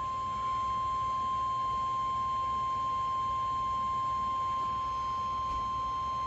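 NOAA Weather Radio 1050 Hz warning alarm tone: a single steady high tone held unbroken over a hiss of radio reception. It is the alarm signal that switches on weather-alert receivers, sent here as the station's weekly test.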